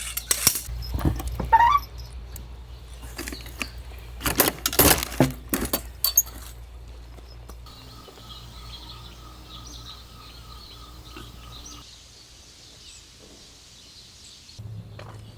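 Camping gear being handled, with a run of sharp knocks and clinks. These give way to faint bird chirps after about six seconds.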